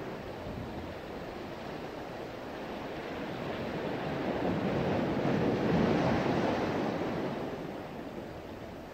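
Sea waves washing onto the shore: a hiss of surf that swells to its loudest about six seconds in and then dies back.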